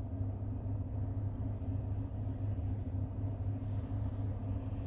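Steady low hum of a truck idling, heard inside the cab.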